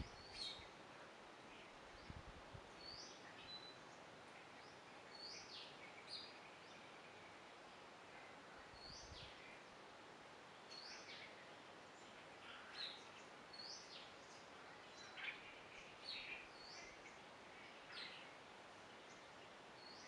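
Faint bird chirps: a dozen or so short, high calls scattered irregularly, over a steady background hiss.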